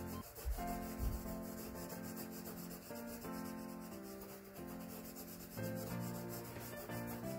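Coloured pencil scratching on sketchbook paper in quick repeated strokes, with instrumental background music underneath.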